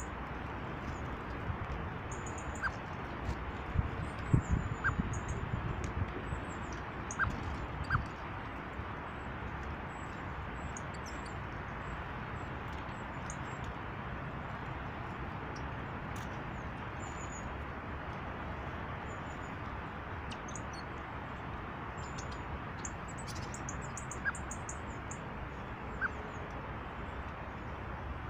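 Small birds chirping in short, high calls over a steady rushing background. A cluster of knocks and thumps comes between about four and eight seconds in, and two sharp clicks follow near the end.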